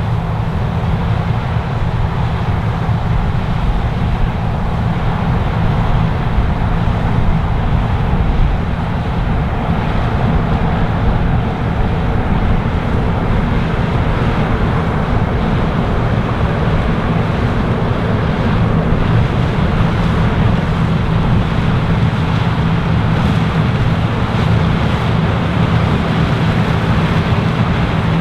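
New Holland CR 9.90 twin-rotor combine harvesting corn, its six-cylinder FPT Cursor 13 diesel running steadily under load. The sound is a constant low drone with an even rushing noise over it.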